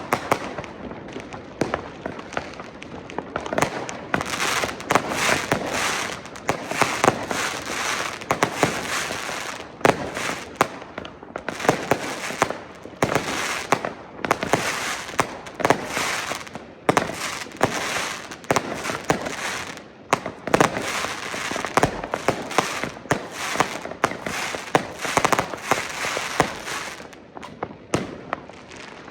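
Street fireworks at midnight on New Year's Eve: a dense, continuous barrage of consumer firecrackers and rockets banging and crackling, many at once, thinning out near the end.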